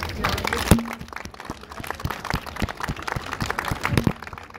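A small group of people clapping by hand: many quick, irregular claps, with one louder sharp sound just under a second in.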